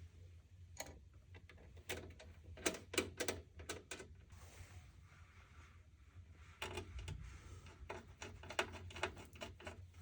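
Light clicks and knocks of computer parts being handled and fitted during a PC build, in two quick clusters, over a low steady hum.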